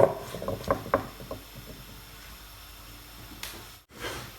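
Kitchen clatter: a sharp knock, then a quick irregular run of clicks and light knocks over about a second, as the pot of soup is set up to heat on the stove.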